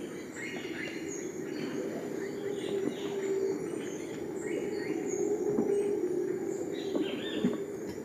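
Rainforest birds calling: many short chirps and whistled notes repeating over one another above a steady low hum.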